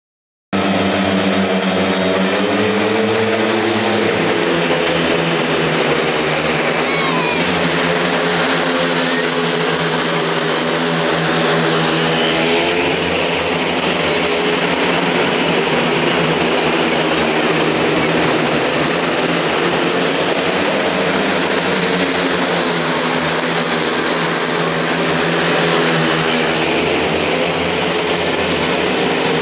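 Speedway motorcycles' single-cylinder 500 cc methanol engines racing round a dirt oval, a continuous loud engine noise that swells twice as the bikes pass closest, about halfway through and again near the end.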